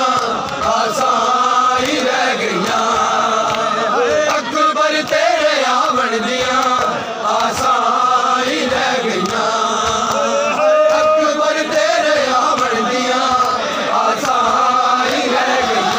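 Male voices chanting a noha, a Shia lament, in a steady melodic line, with the slaps of chest-beating (matam) from the crowd beneath it.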